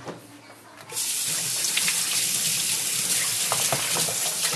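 Water running from a kitchen tap: it comes on about a second in as a steady hiss and shuts off suddenly near the end, with a few light knocks under the stream.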